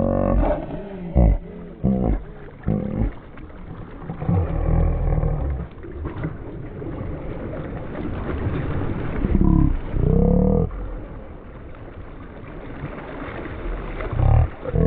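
Wind buffeting the microphone in uneven gusts, with a loud rumbling that swells and fades.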